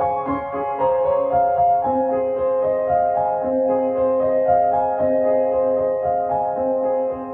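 Background music: a gentle piano track playing sustained, slowly changing chords.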